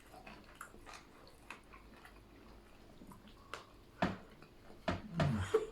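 Faint chewing and small mouth clicks of people eating grilled chicken, with a few louder clicks about four and five seconds in and a short murmur near the end.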